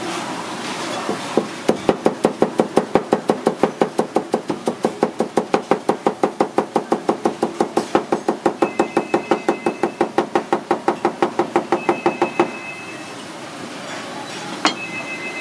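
Chef's knife quickly shredding a rolled bundle of perilla leaves on a plastic cutting board: a fast, even run of knife strokes knocking on the board that stops a few seconds before the end, followed by one more single knock.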